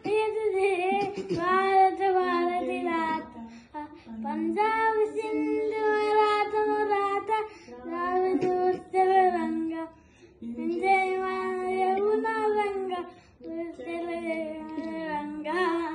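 A young boy singing solo with no accompaniment, in long held phrases with brief pauses for breath between them.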